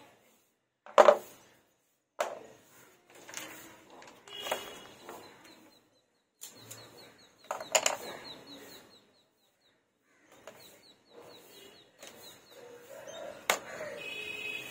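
Hand tools set down one by one on a plywood board: paintbrushes, a pencil and a craft knife give a series of separate light knocks, the loudest about a second in, with silent gaps between. Near the end a dry paintbrush sweeps over wood with a soft rustle.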